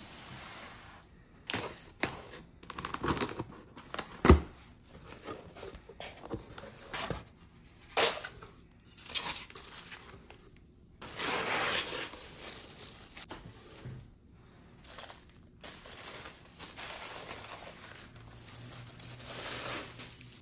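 Unboxing: a cardboard box and paper packing handled by hand, with crinkling, rustling and tearing and a run of sharp knocks, the loudest a thump about four seconds in. Longer stretches of rustling come later, as the wrapped concrete bowl is lifted from its packing.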